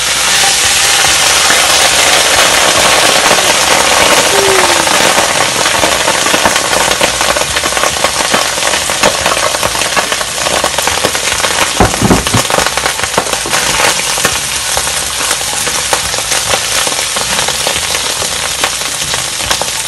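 Cooked rice hitting hot oil in a large metal pot, crackling and sizzling loudly as it starts to fry, with a single knock about twelve seconds in. A wooden spoon stirs the rice near the end.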